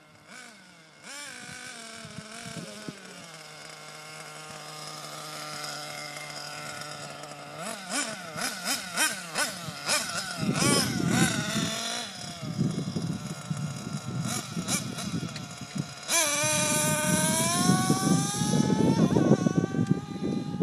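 Small glow-fuel (nitro) engine of a radio-controlled car running, its high whine rising and falling as it revs up and eases off, with a sharp climb to high revs near the end. Wind rumbles on the microphone in the second half.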